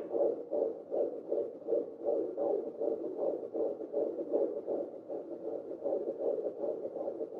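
Fetal heartbeat from a 14-week pregnancy played through a pocket fetal Doppler's speaker: fast, even whooshing pulses, a little more than two a second.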